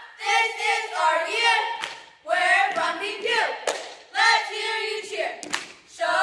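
A small group of girls chanting a cheer together in short shouted phrases, with three sharp claps about two seconds apart, echoing in a school gymnasium.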